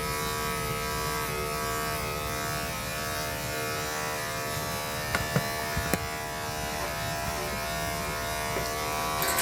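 Electric dog grooming clippers running with a steady buzz, with a few short clicks about five to six seconds in.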